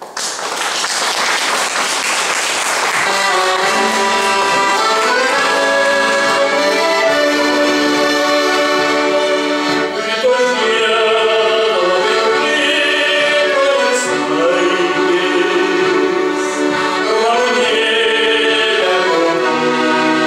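Live instrumental music led by an accordion playing held chords and a melody, starting abruptly.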